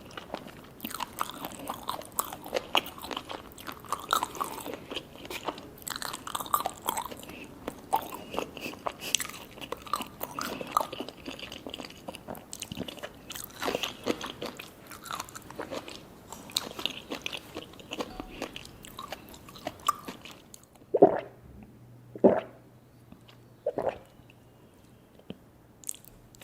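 Close-miked chewing, biting and crunching of sushi cones, nori-wrapped rice with raw fish, a dense run of wet crunchy mouth sounds. Near the end the eating stops and three louder knocks follow, then a sharp click.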